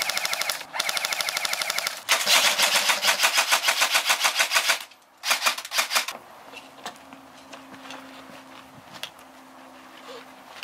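P90-style airsoft gun firing on full auto: four rapid bursts at about fourteen shots a second, the longest nearly three seconds. After that only a few scattered faint clicks remain.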